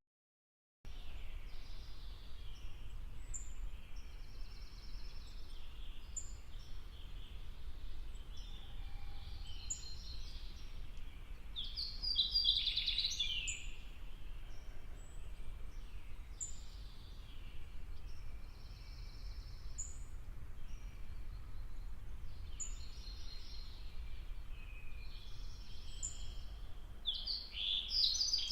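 Songbirds singing and chirping, short phrases repeating every second or two, over a faint steady low rumble; the birdsong starts about a second in.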